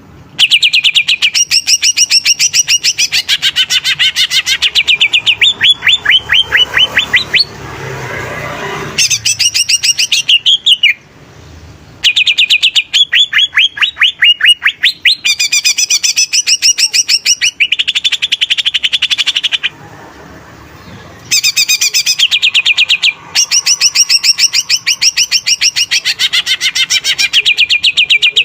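Green leafbird (cucak ijo) singing loudly: phrases of very fast, repeated chattering notes and falling trills, broken by short pauses. A brief harsher, rasping sound comes about eight seconds in.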